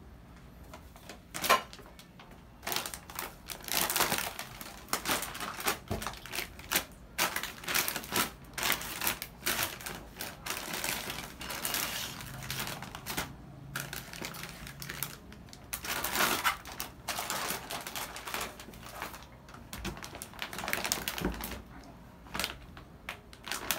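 Plastic foil packs crinkling and cartons rustling as they are handled and taken out of a cardboard box: an irregular run of crackling and clicking.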